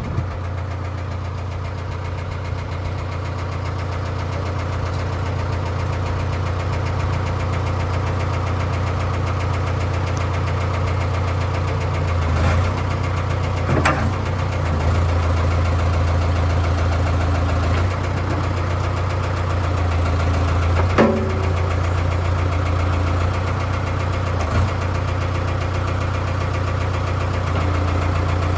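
Case 555C backhoe's diesel engine idling steadily, running normally after a bad filter O-ring that let it suck air was fixed. A few short knocks or clanks are heard around the middle and again later.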